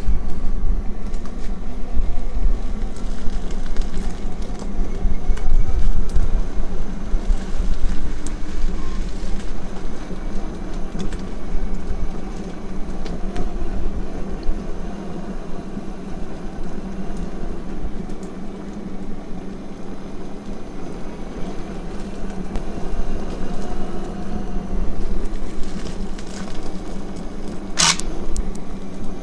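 Electric unicycle riding along a cracked asphalt road: a steady hum from the tyre and motor over a heavy, uneven low rumble of road and wind noise. A brief sharp squeak or click near the end.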